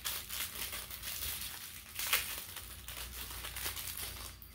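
Crinkling and crackling of small plastic packaging being handled and pulled open, with a sharper crackle about two seconds in.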